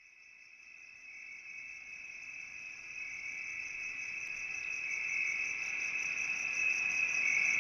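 Crickets chirping: a steady high-pitched trill that grows louder.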